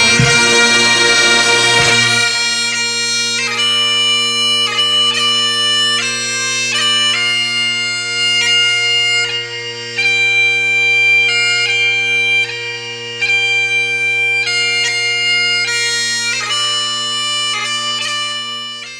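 Background bagpipe music: a melody of changing notes played over steady, unbroken drones, fading out at the end.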